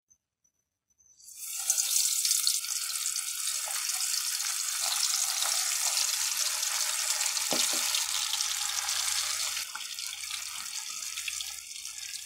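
Marinated chicken pieces sizzling in a pan of hot oil: a steady, crackling hiss that starts about a second in and eases somewhat near the end.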